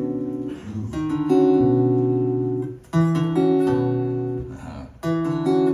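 Acoustic guitar played solo, ringing chords left to sustain, with a new chord struck every second or two.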